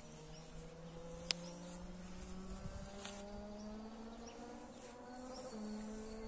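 A faint buzzing drone, slowly rising in pitch and stepping up once near the end, with one sharp click about a second in.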